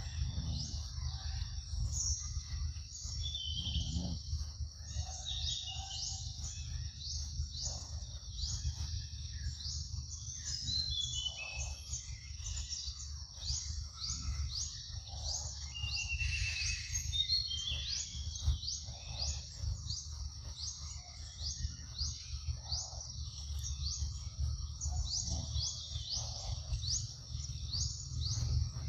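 Woodland ambience: a steady high insect hiss with short rising chirps repeated about twice a second, and a bird calling in runs of falling notes a few times. A steady low rumble runs underneath.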